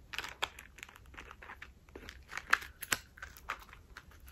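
Close handling noise of a thin metal chain being threaded through a small leather key wallet. The chain links give scattered light clicks and clinks, with soft rustling, and a couple of sharper clicks a little past halfway.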